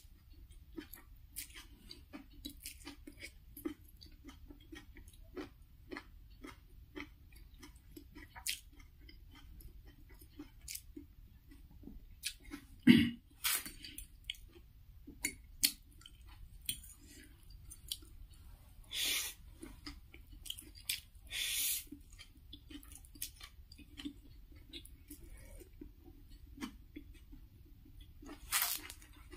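Close-miked chewing of spicy Wai Wai instant-noodle chowmein, with a steady run of small mouth clicks. A fork and spoon clink and scrape on a ceramic plate, with a sharp knock about 13 seconds in, the loudest sound.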